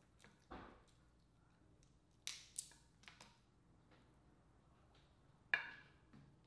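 Dungeness crab shell cracking and snapping as it is pulled apart by hand: several sharp, separate cracks, the loudest near the end.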